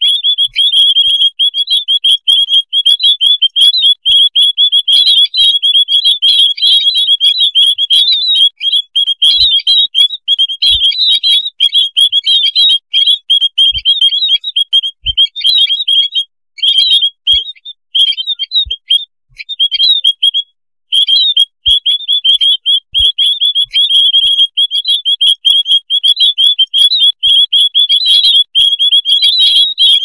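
A flock of white-headed munias calling together: many rapid, high chirps overlapping almost without pause, with a few brief breaks a little past the middle.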